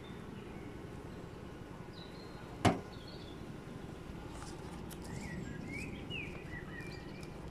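One sharp click a little under three seconds in, over a steady outdoor background rumble. Faint short bird chirps come in the second half.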